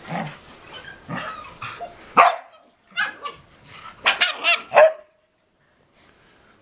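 Finnish Lapphunds play-fighting: a mix of rough growly and yipping noises, then a sharp bark about two seconds in and a quick run of loud barks between about three and five seconds in.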